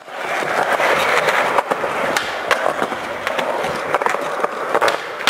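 Skateboard rolling: a steady wheel noise with scattered sharp clicks, and a louder knock at the very end.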